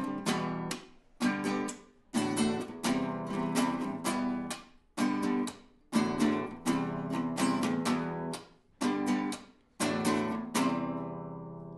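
Acoustic guitar played flat across the lap, strummed in rhythmic groups of chords with short stops between them; the last chord rings out and fades near the end.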